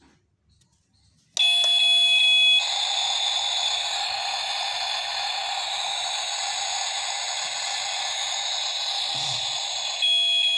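Battery-powered toy kitchen stove playing its electronic cooking sound effect. About a second and a half in, a steady electronic tone with short beeps starts, then gives way to a steady hiss of simulated boiling for about seven seconds, and the tone comes back near the end.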